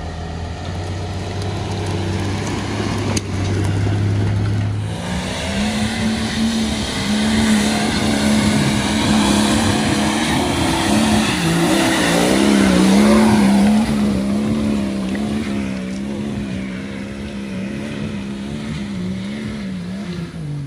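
Nissan Patrol's swapped BMW M57 twin-turbo straight-six diesel working hard up a steep muddy climb. It runs at low revs at first, then revs up about five seconds in and stays high, the revs rising and falling again and again as it drives away.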